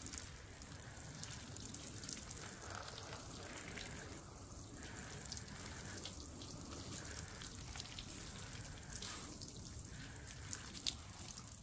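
Faint, steady sprinkle of water falling from a fine spray onto potting soil in flowerpots, with small ticks of drops.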